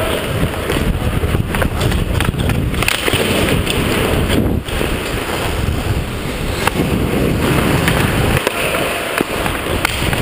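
Wind rushing over a helmet-mounted GoPro's microphone as a hockey player skates, with the scrape of skate blades on the ice and scattered sharp clicks of stick and puck. The sound cuts off abruptly at the end.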